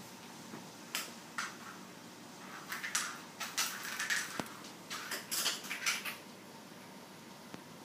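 Irregular light clicks and clattering scuffles of a hollow plastic egg and a cat's paws on a hardwood floor. They come thickest in a busy flurry in the middle, then stop about six seconds in.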